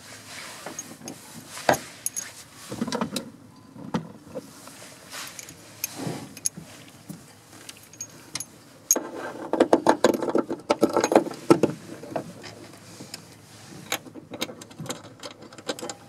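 Small metal tools and fasteners clicking and rattling as a hiking-strap fitting is undone, with a busier spell of rattling and scraping about nine seconds in.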